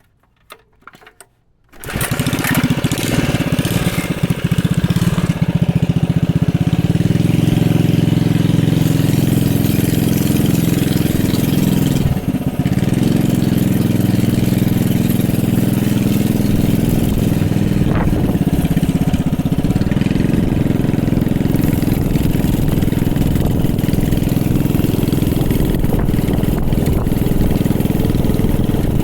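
Small single-cylinder engine from a pressure washer, fitted to a home-built mini bike, starting up about two seconds in and then running steadily, with a brief dip about twelve seconds in.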